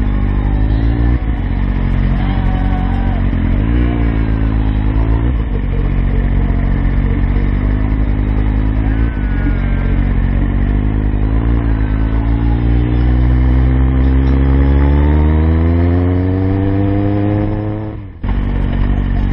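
Kawasaki Z750 inline-four motorcycle engine heard from the bike itself. It is ridden slowly, with short blips of the throttle, then pulls away in one long rising rev. The sound cuts off abruptly near the end and picks up again at a steady engine note.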